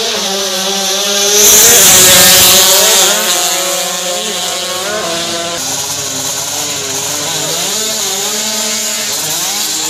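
Kawasaki Ninja drag bike's engine running and being revved during a tune-up, its pitch wavering up and down, with one loudest rev from about one and a half to three seconds in.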